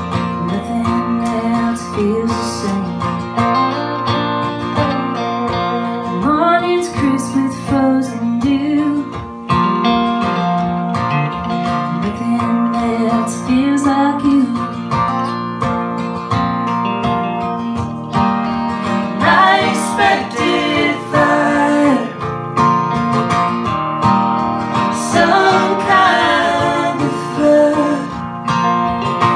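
Live acoustic band music: a strummed acoustic guitar with electric guitar accompaniment and a woman singing.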